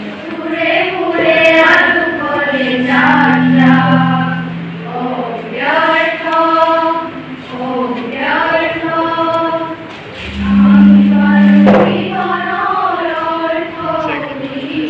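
A group of young women singing a song together as a choir, in phrases with short breaks between them. A brief knock sounds late on.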